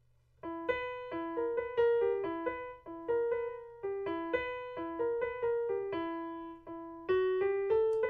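Piano playing a single-note melody in a minor key, about three notes a second, starting about half a second in. The last note is held briefly near the end.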